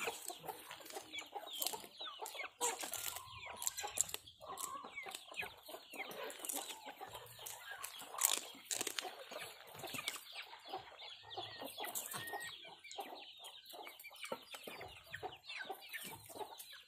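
Chickens clucking and calling, many short falling calls overlapping, with a rooster among them.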